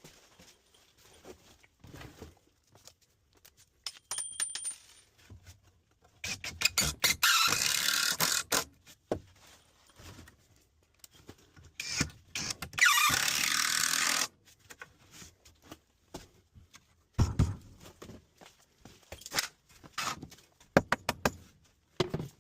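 Work sounds from a shower installation: scattered metallic clinks, knocks and scrapes of tools and parts being handled. Two loud hissing bursts of about a second and a half each come a third of the way in and just past the middle.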